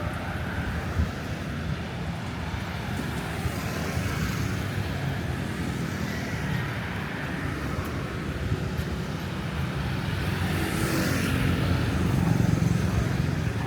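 Road traffic: a steady low rumble of passing vehicles, with one vehicle passing louder near the end.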